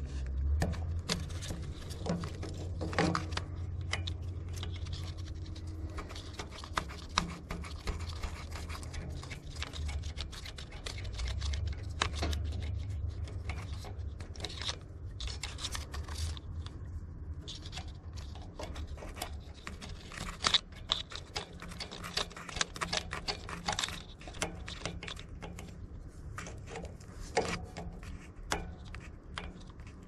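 Pliers and fingers working on a skid steer's backup alarm wiring, an irregular run of small metal clicks and scrapes as the tool grips the terminal nut and knocks against the bracket. A low rumble comes and goes underneath.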